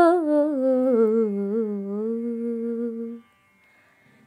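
A singer's voice in a Malayalam film song, holding the last syllable of a line on a long note that slowly slides down in pitch. It stops about three seconds in, and about a second of near silence follows.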